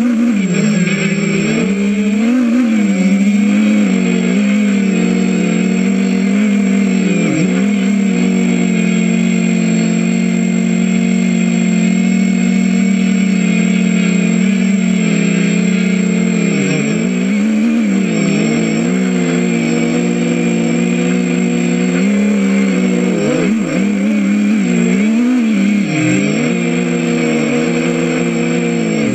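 Electric motors and propellers of a 250-size FPV racing quadcopter heard from its onboard GoPro: a loud, continuous buzzing hum whose pitch wavers up and down again and again as the throttle changes.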